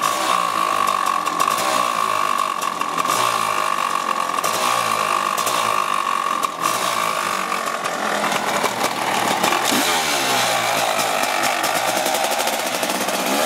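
Honda CR500 two-stroke single-cylinder dirt bike engine running hard, spinning a paddle tire on its rear wheel. The pitch holds steady at first, then rises and falls with the throttle in the second half.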